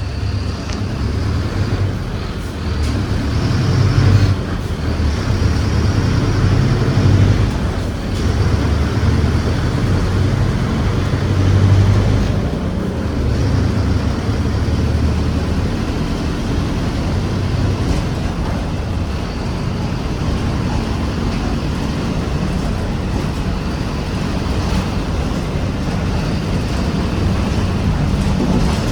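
Mercedes-Benz OF-1721 city bus diesel engine running under way. Its level rises and falls as it pulls and eases off, with several swells in the first half, then runs steadier.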